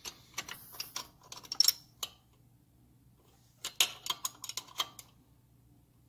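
Hand tools clicking and clinking against metal engine parts in two short, irregular bursts of light knocks: one in the first two seconds and another about four seconds in.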